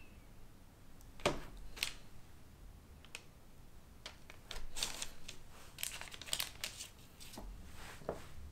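Metal bench scraper pressed down through shortbread dough onto parchment paper: a series of short cuts and scrapes with the paper crinkling.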